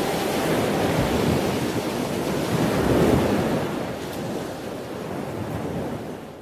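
Sea waves breaking and washing up on a sandy beach, a steady surf noise that swells about three seconds in and then fades out near the end.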